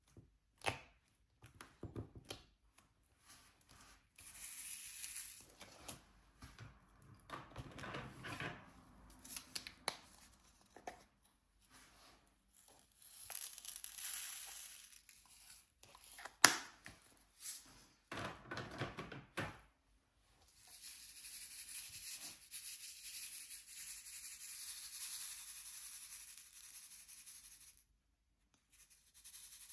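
Diamond painting handled close up: plastic crinkling and tearing with scattered small clicks and taps, and a sharp click about halfway. Near the end comes a long, even tearing hiss lasting about seven seconds, like protective film being peeled slowly off the canvas.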